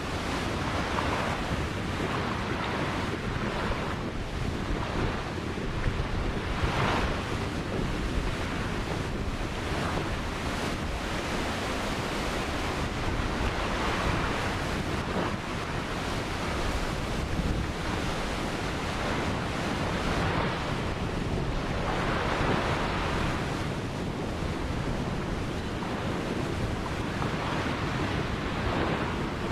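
Ocean surf: waves breaking and washing up the beach in a continuous rush that swells and falls every several seconds.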